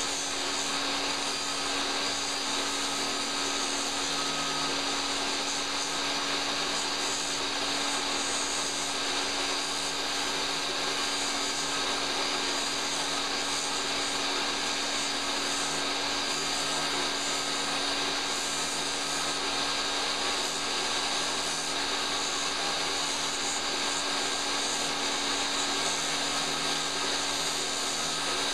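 Benchtop table saw running steadily while a wooden dowel is turned by hand against its blade to cut a groove around it.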